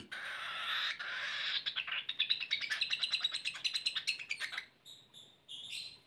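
Young cockatiel's food-begging calls while being hand-fed: a raspy hiss for about a second, then a fast run of short chirps that stops near the end, followed by a few faint high peeps.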